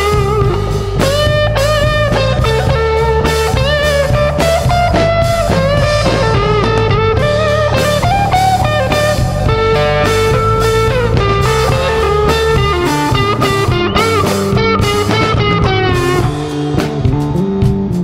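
Psychedelic blues-rock band playing an instrumental passage: guitar lead with bending, wavering notes over bass guitar and drum kit. The low bass drops away about two-thirds of the way through and comes back near the end.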